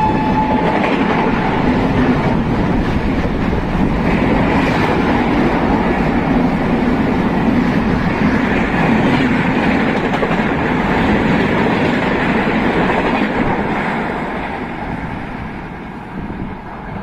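Poorva Express passenger train hauled by a WAP-7 electric locomotive running at high speed: a steady rush and rumble of wheels clattering over the rails. The tail of a horn note cuts off about half a second in, and the train noise fades over the last few seconds.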